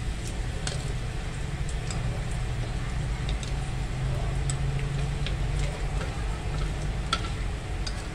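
Pork slices frying in shallow oil in an aluminium wok, with scattered sizzling crackles and chopsticks clicking against the pan as the pieces are turned. A steady low hum runs underneath.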